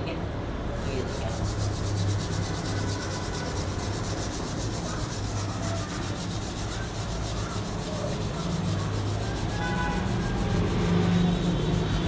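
Wet scrubber rubbing over a soapy motorcycle wheel rim and spokes by hand, a continuous scrubbing friction, over a steady low hum.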